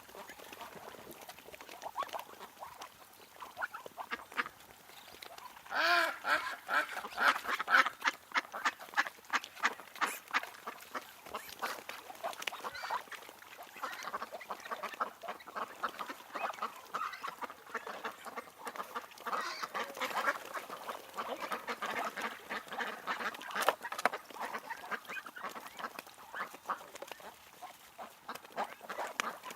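A group of ducks quacking and chattering, many short calls overlapping, with a louder flurry of quacks about six seconds in.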